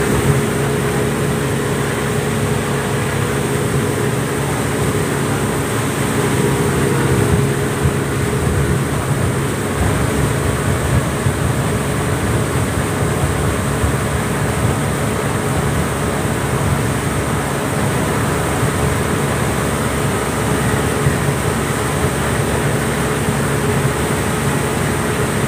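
Speedboat engine running steadily at cruising speed, holding an even pitch, over the rush of water and wind as the boat moves.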